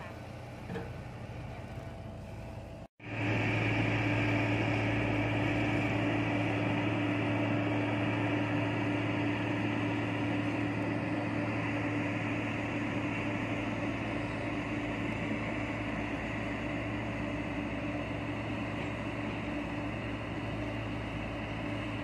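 Diesel engine of a single-drum road roller running as it drives. About three seconds in the sound cuts out for a moment and returns louder and very steady from a BOMAG single-drum roller, with a constant low hum and a higher whine.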